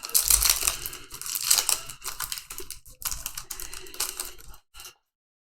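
Trading cards and a foil booster-pack wrapper being handled by hand: a dense run of crinkling and fine clicking that cuts off abruptly about half a second before the end.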